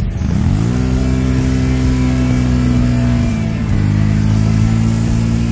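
Quad ATV engine revving up sharply about half a second in and holding high revs as the quad accelerates away. The pitch drops slightly just after three seconds.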